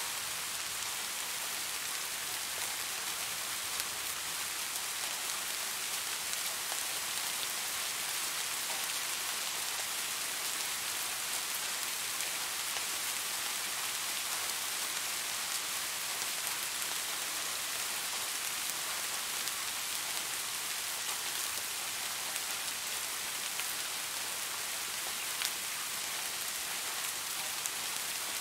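Steady rain falling: an even hiss with a few faint drop ticks scattered through it.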